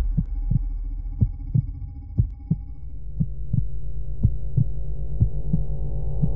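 Heartbeat sound effect: pairs of low thumps about once a second, over a steady low hum that grows fuller toward the end.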